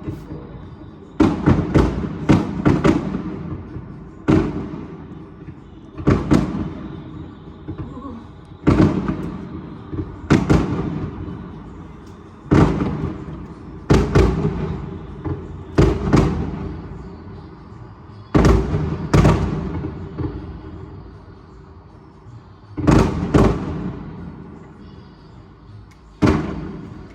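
Fireworks going off one after another, about fifteen sharp bangs at uneven intervals, each trailing off over a second or two. Some come in quick pairs or triplets.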